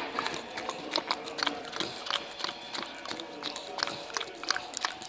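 Pit bull puppy licking peanut butter off a metal spoon: quick, irregular wet licking and smacking clicks, several a second.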